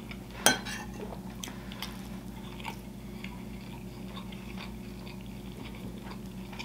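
Close-miked chewing of a mouthful of mac and cheese: soft wet mouth clicks and smacks, with one sharp click about half a second in, over a faint steady hum.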